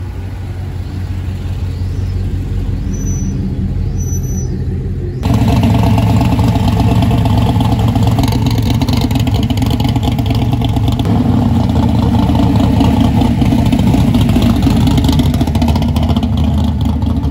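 Classic Chevrolet V8-type car engine running with a steady low exhaust rumble. About five seconds in it gives way abruptly to a much louder, rougher rumble from a matte-black early-1970s Chevrolet Monte Carlo with side-exit exhaust.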